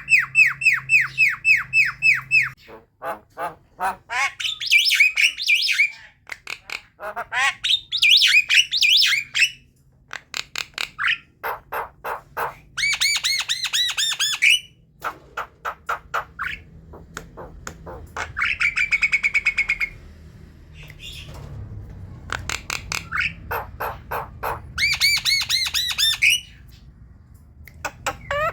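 Javan myna (jalak kebo) chattering: fast runs of repeated harsh, squawky notes, in varied phrases broken by short pauses.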